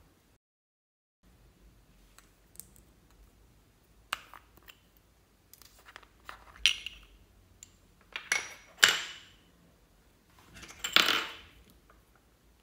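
Small plastic lip balm pots being handled: several sharp plastic clicks and taps as the lids are opened and handled. About eleven seconds in comes a louder, longer scrape as a small spatula scoops out the balm.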